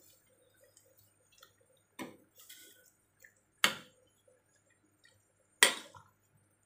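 Stainless steel ladle stirring soup in a stainless steel saucepan, clinking against the pot three times, the last two knocks the loudest, with faint sloshing of the broth between.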